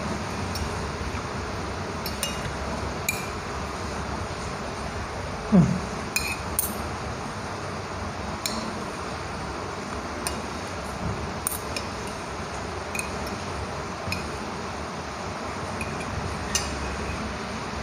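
A metal fork clinks and scrapes against a plate of instant fried noodles, with a sharp click every second or two over a steady background hiss. A short falling sound about five and a half seconds in is the loudest moment.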